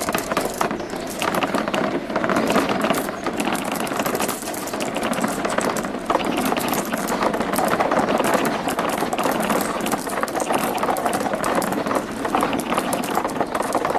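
Many marbles rolling and clattering down a plastic marble-run track, a dense, continuous rattle of small clicks that starts suddenly.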